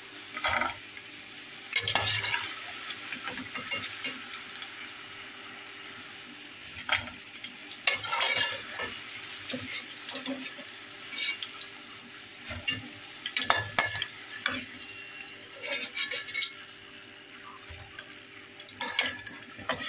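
French fries frying in hot oil in a stainless steel pot, a steady sizzle, while a metal slotted skimmer scrapes and clinks against the pot every second or two as the fried potatoes are scooped out.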